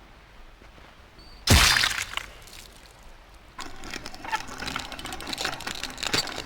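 A sudden loud crash about a second and a half in, a deep thud with breaking and shattering, then from about three and a half seconds a dense run of crackling and clattering.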